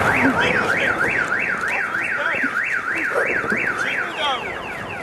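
Car alarm sounding with a fast up-and-down warble, about three and a half swoops a second. About four seconds in it switches to a run of quick falling chirps.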